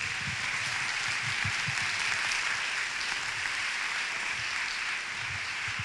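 Live audience applauding steadily at the close of a talk.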